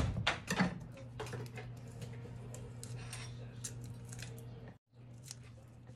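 A garlic clove being prepared on a wooden cutting board: a few sharp knife knocks on the board at the start, then scattered faint crisp clicks as the papery skin is peeled off by hand, over a steady low hum.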